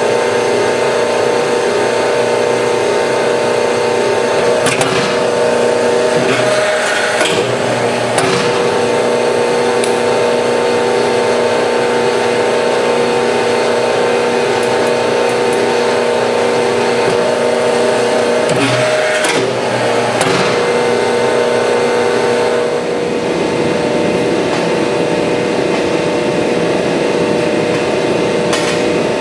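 Hydraulic forging press running with a steady, even hum. A few sharp metallic knocks sound as the hot steel block and tongs are worked against the dies. About 23 seconds in, the hum gives way to a rougher, noisier machine sound.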